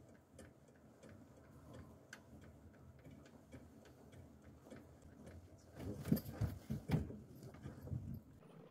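Faint regular ticking, a few ticks a second, with a few low muffled thuds about six to seven seconds in.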